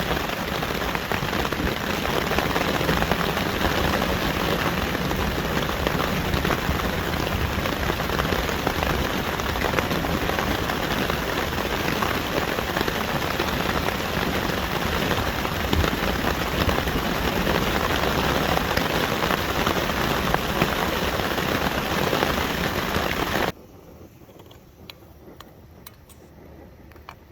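Steady rain falling, then cutting off abruptly near the end, leaving only a faint background.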